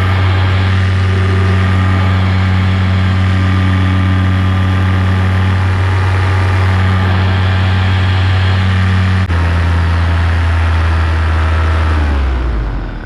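Paramotor engine running at a steady speed. About nine seconds in, its note drops abruptly with a click, and near the end it winds down and stops.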